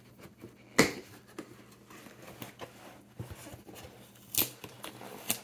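A few sharp clicks and knocks over a quiet room, the loudest about a second in and two more near the end.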